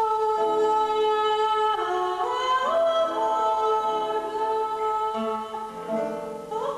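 Contemporary chamber ensemble music: slow, layered held notes that step and slide upward about two seconds in and again near the end.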